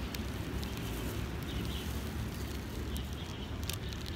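Outdoor ambience: a low, uneven rumble like wind on the microphone, with faint bird chirps now and then.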